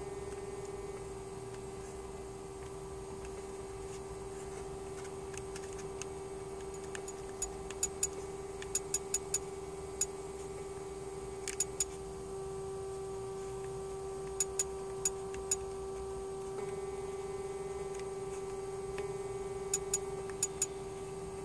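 Buttons on a small handheld TV remote clicking in short clusters as they are pressed again and again, with the TV not responding to Play. Under the clicks runs a steady electrical hum from the powered-up dashboard electronics.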